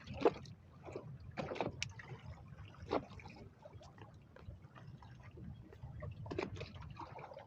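Water sloshing and splashing irregularly against a small boat's hull, over a low steady rumble.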